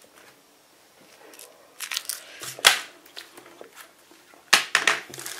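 Packaging and small items being handled and sorted by hand: scattered rustling and crinkling with sharp clicks, one strong snap just under three seconds in and a louder burst of rustling and knocks near the end.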